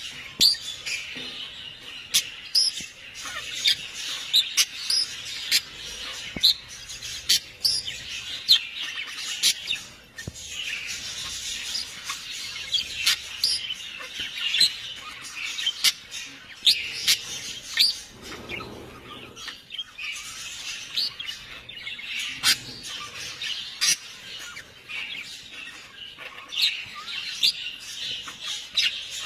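Birds chirping: many short, high calls following one another and overlapping.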